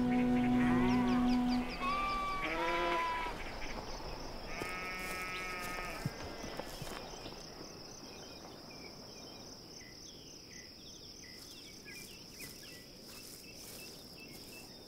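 Sheep bleating twice in the first half, as soft music fades out at the start, over a steady high-pitched hum.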